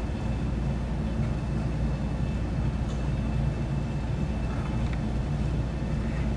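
Steady low background rumble, with a few faint ticks about halfway through.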